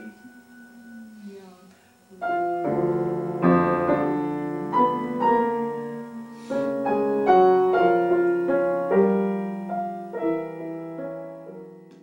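Grand piano playing a classical passage. Soft notes die away over the first two seconds, fuller chords start about two seconds in, and a last held chord fades out near the end.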